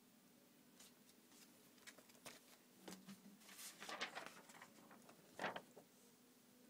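Sheets of paper being handled and shuffled: a faint run of soft rustles and crinkles, busiest about four seconds in, with one more rustle about a second later.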